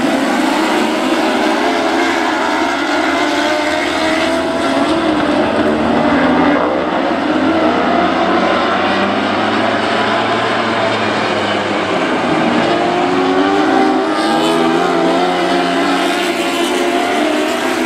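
A pack of lightning sprint cars racing, their 600cc motorcycle engines running at high revs. Many engine notes overlap and rise and fall as the cars lift and accelerate through the turns.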